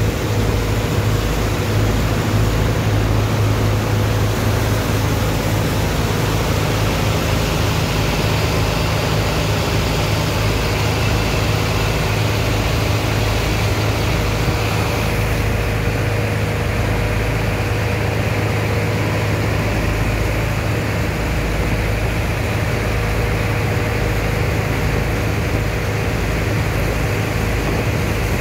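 Heavy engine of a sand dredger running steadily with a deep hum, under an even rush of water from hoses jetting onto wet sand in a barge's hold. The hiss thins a little about halfway through.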